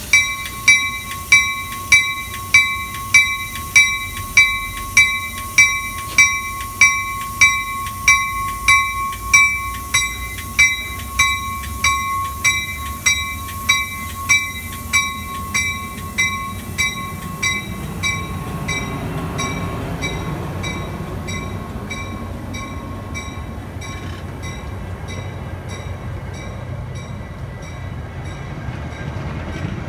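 Railroad grade-crossing bell ringing a little under two strikes a second, fading and stopping about two-thirds of the way through. A Metra commuter train's bilevel cars roll past, with a low rumble of wheels on rail that grows in the second half.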